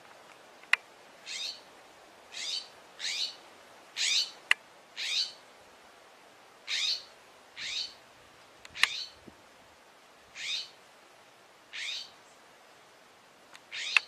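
A jay gives about eleven short, harsh scolding calls, each falling in pitch, roughly one a second with uneven gaps. It is the alarm call of a jay mobbing a snake. A few sharp clicks fall between the calls.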